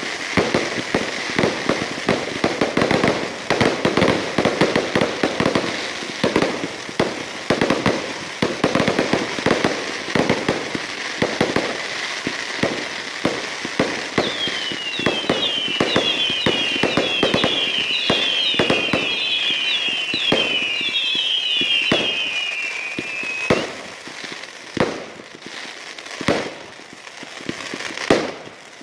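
Fireworks going off in a dense barrage of bangs and crackling over a steady hiss. About halfway through, a string of overlapping whistles, each falling in pitch, lasts roughly ten seconds. Near the end the bangs thin out to scattered single reports.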